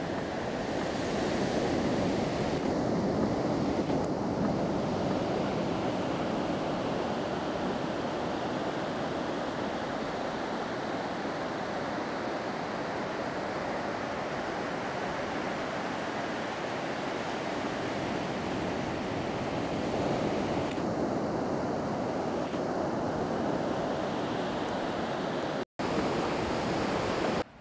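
Steady wash of ocean surf with some wind on the microphone, broken by a brief dropout near the end.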